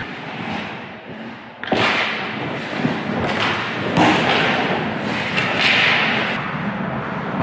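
Hockey play on the ice: a sharp impact about one and a half seconds in, a hit of stick or puck, followed by skates scraping and more knocks of sticks and puck.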